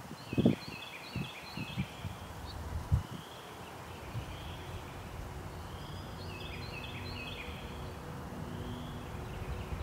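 A few footsteps thud in the first three seconds while small birds chirp in quick clusters of short notes, twice. About halfway through, a steady low hum with a few held tones comes in underneath.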